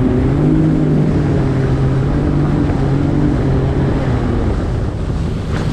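Jet ski engine running at a steady pitch, with a rush of wind and water noise; the engine tone fades from about four seconds in.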